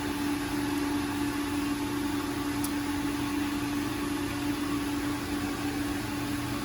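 Steady machine hum with one constant tone over a hiss, and a faint tick about two and a half seconds in.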